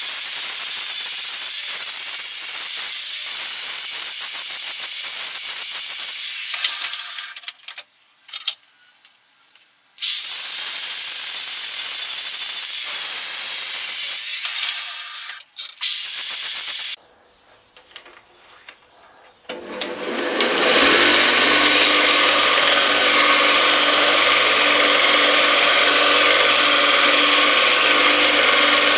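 Angle grinder with an abrasive disc grinding the steel head of a ball-peen hammer held in a vise: two long stretches of loud, steady grinding hiss with short pauses between. Then, for the last third, a belt grinder runs with a steady motor hum as the hammer's steel face is pressed against the belt, throwing sparks.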